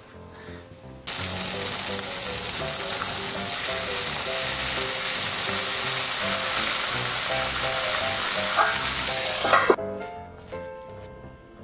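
Cutlets sizzling in a hot frying pan, a steady hiss that starts suddenly about a second in and cuts off suddenly near the end. Light background music plays underneath.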